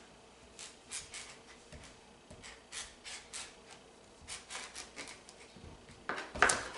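Large kitchen knife sawing down through a raw butternut squash in short, rasping strokes, with one louder knock near the end as the blade gets through.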